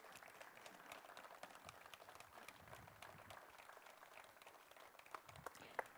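Audience applauding faintly, a dense patter of hand claps, with a few louder single claps near the end.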